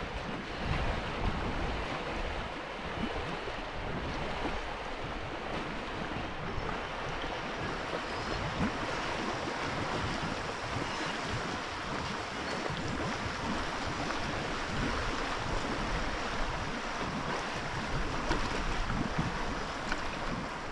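Sea water splashing and rushing, with wind buffeting the microphone in an uneven low rumble.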